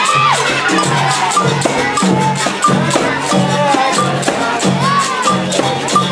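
Capoeira music: a berimbau struck with its stick in a steady rhythm, with a caxixi basket rattle shaking on the strokes and voices over it.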